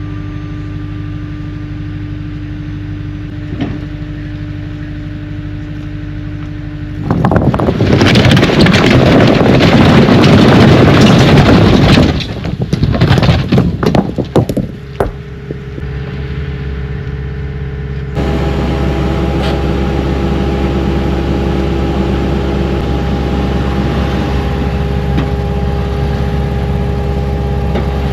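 Construction machine's diesel engine running steadily. About seven seconds in comes a loud, continuous rush of a load being dumped, lasting about five seconds, then scattered clatter. The engine carries on and steps up louder at about 18 seconds.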